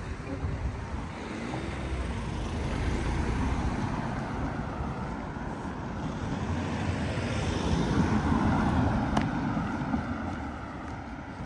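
Cars driving past on a narrow road, their engine and tyre noise swelling and fading twice, loudest about three seconds in and again about eight seconds in. There is a single sharp click just after nine seconds.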